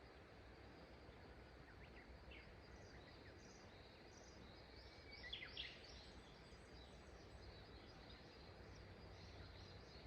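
Faint birds chirping over the steady low hiss of a flowing river. A few short calls come through, the loudest cluster about halfway through.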